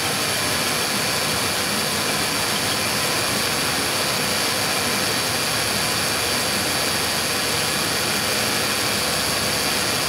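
2002 Ford Taurus V6 engine idling steadily, heard close up in the open engine bay.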